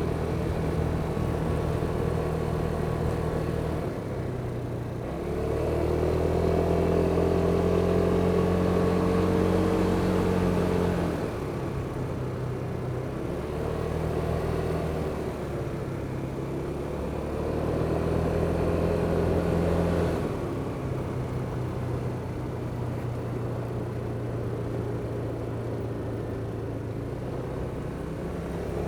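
Kymco Superdink 300 scooter's single-cylinder four-stroke engine under way, heard from the rider's position. It pulls harder and rises in pitch twice, about five seconds in and again near eighteen seconds. In between it eases back to a lower, steady note, with a constant rush of wind.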